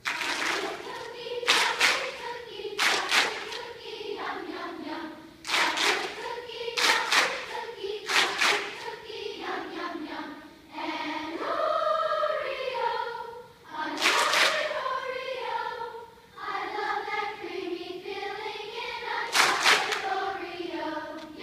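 Children's choir singing a vocal warm-up exercise in unison, the pitch sliding up and down, broken by sharp short sounds that often come in pairs.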